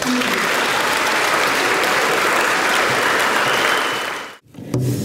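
An audience applauding, a dense steady clapping that fades about four seconds in and then cuts off abruptly.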